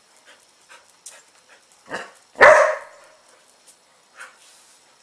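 Dog barking: one loud, sharp bark about two and a half seconds in, a softer bark just before it, and a small one near the end, with faint light ticks in between.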